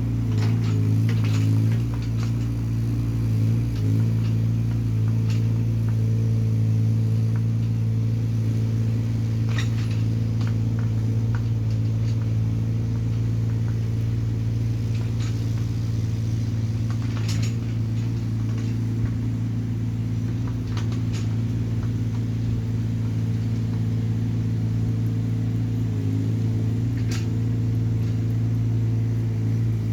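Hyundai mini excavator's diesel engine running steadily under work, its note dipping briefly a couple of times, with a few scattered short knocks over the top.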